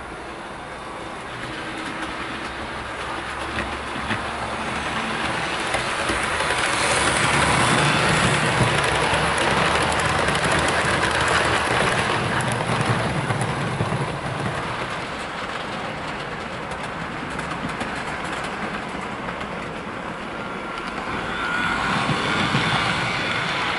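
A Dapol Class 52 Western model diesel locomotive hauling a rake of coaches round a model railway layout: a steady rumble and clatter of wheels on the track. It swells as the train runs close by, from about six to thirteen seconds in, eases off, then builds again near the end.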